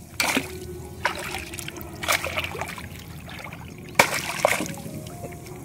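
Shallow seawater splashing and trickling around hands and a net holding a caught rabbitfish, with short sharp splashes at the start, about one and two seconds in, and the loudest about four seconds in.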